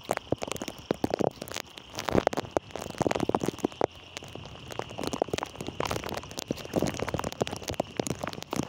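Heavy rain falling, heard up close as a dense, irregular stream of crackles and taps.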